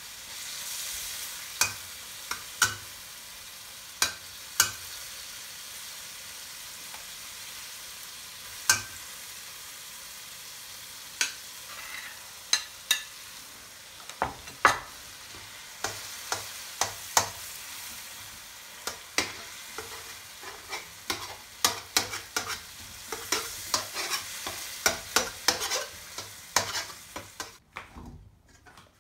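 Tomatoes and scrambled eggs stir-frying in a wok: a steady sizzle with a metal spatula clacking and scraping against the wok, the strokes coming thicker in the second half. The sizzle stops near the end.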